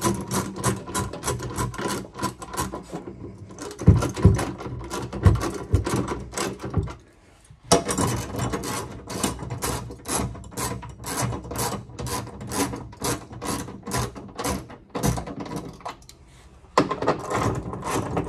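Hand ratchet clicking rapidly and evenly, about five clicks a second, as the tank's stainless strap bolts are tightened, with a few heavier knocks around four to five seconds in. The clicking stops briefly twice, about seven seconds in and again near the end.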